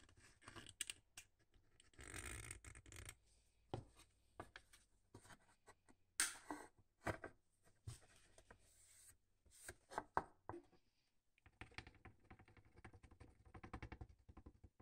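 Quiet hand-work on a plastic toy trailer at a workbench: scattered light clicks and taps with bits of scraping and rubbing. A run of fast, fine scratching comes in the last few seconds.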